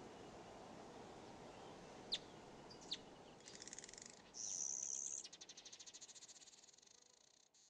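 Faint outdoor nature ambience: a low steady background with two short sharp bird chirps, then a high, rapidly pulsing trill that swells briefly, holds a steady high note for about a second, and fades out toward the end.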